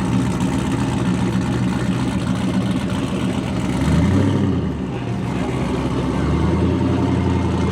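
A car engine running steadily, getting briefly louder about four seconds in.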